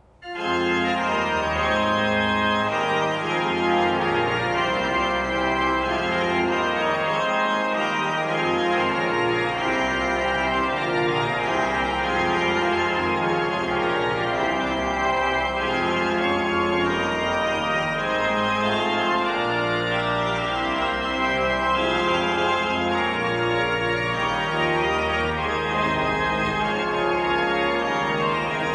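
Historic pipe organ of Orgelet, built 1627–1725, entering about half a second in after near silence and playing continuously: sustained chords over a moving bass line.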